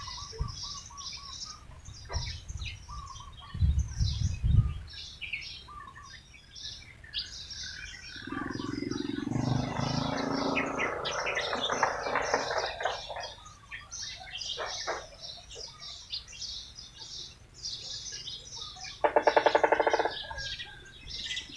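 Many small birds chirping over and over. Among the chirps are a low thump about four seconds in, a longer, lower sound through the middle, and a loud, brief pitched call near the end.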